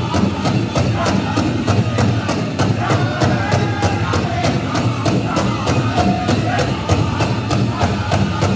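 Powwow drum group playing a chicken dance song: a big drum struck in a fast, steady beat under high-pitched group singing, with a light jingling over it.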